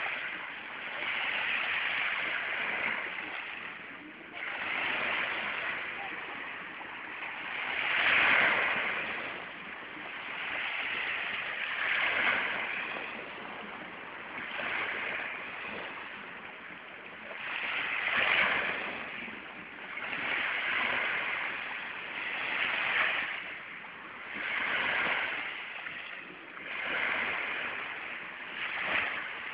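Small sea waves breaking and washing up the shore, a hiss of surf that swells and fades every few seconds.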